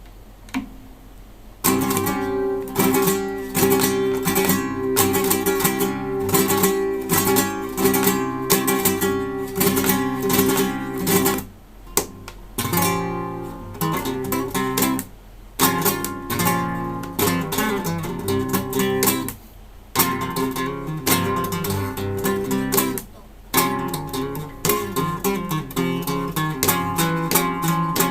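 Solo acoustic guitar played fingerstyle, starting a slow, dark-sounding piece about two seconds in, with strummed chords and several brief pauses between phrases.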